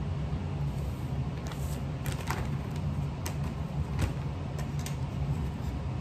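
Scattered rustles and light taps as a towel and a paper bag of plaster casting powder are handled at the counter, over a steady low hum.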